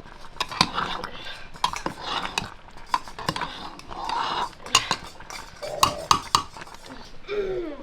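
Dishes and metal utensils clinking and clattering as they are handled: many sharp, irregular knocks, some of them ringing briefly.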